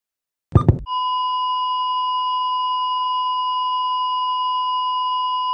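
Heart-monitor sound effect: one last beat, then a long, unbroken, steady flatline tone, the signal that the heart has stopped.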